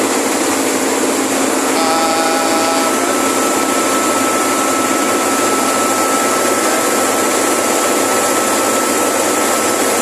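Industrial refrigeration compressor of a tube ice machine running: a steady, loud mechanical rush with a constant high whine. A short burst of extra tones comes in about two seconds in.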